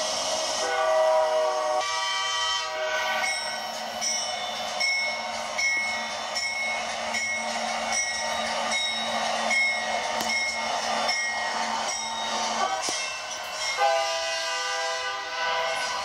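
Multi-chime diesel locomotive horn blasts, played back through a TV speaker: two short blasts near the start and another near the end. In between, a bell rings in even strokes, about one and a half a second.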